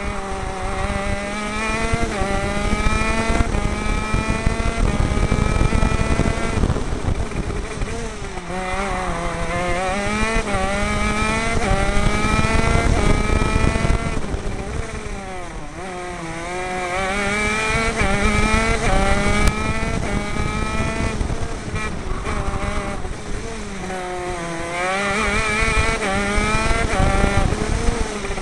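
Two-stroke 125cc KZ shifter kart engine, heard onboard at racing speed. The pitch climbs in a run of short rising steps with brief breaks at the upshifts. Three times it drops in pitch and loudness as the kart slows for a corner, then climbs through the gears again.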